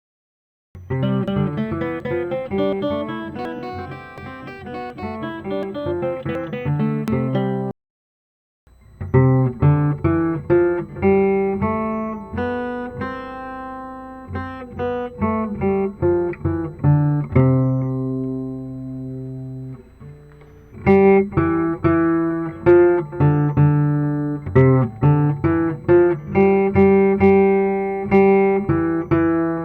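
Guitar sound from a phone music app playing a melody of plucked notes and chords, stopping briefly twice: just after the start and about 8 seconds in.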